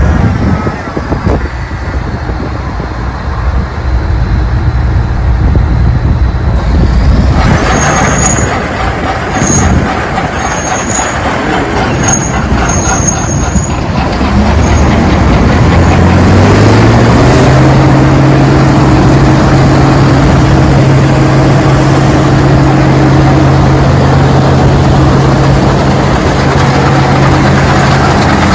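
Case 1680 Axial-Flow combine's diesel engine running. About halfway through it revs up over a few seconds and then holds a steady high speed, with a few brief high squeals shortly before.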